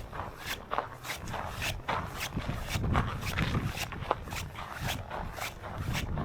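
Footsteps crunching through snow at a walking pace, about two steps a second, with strong blizzard wind buffeting the microphone in low gusts.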